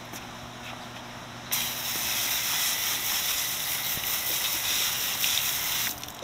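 Garden hose spray nozzle opened about a second and a half in, spraying water in a steady hiss over a plastic canister-filter part for about four seconds, then shut off abruptly. Faint clicks of the part being handled come before the spray.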